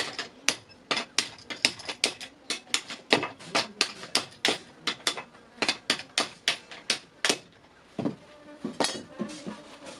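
Hammer blows on metal, quick and slightly irregular at about three a second, with a short pause about seven seconds in before a few more strikes.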